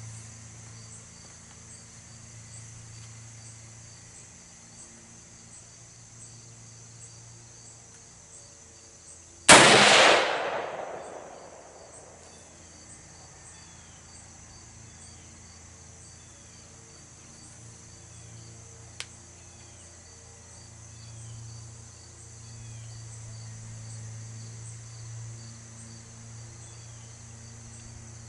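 A single rifle shot from a Daniel Defense MK12 5.56 mm rifle about a third of the way in, its report echoing away over about two seconds. Insects chirp steadily throughout, and there is a faint click later.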